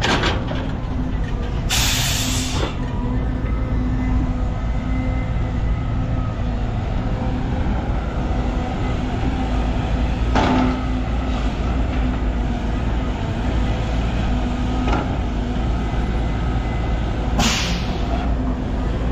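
Heavy diesel engine running steadily, with short blasts of hissing compressed air from an air-brake system, about two seconds in and again near the end.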